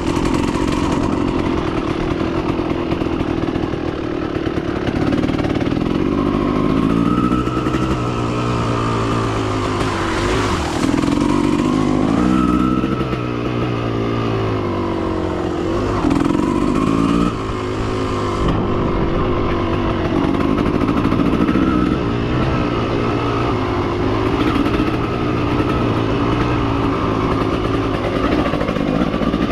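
Motorcycle engine being ridden hard, its pitch climbing and dropping again and again as the throttle is opened and rolled off through the gears, with the most changes about a third to halfway through.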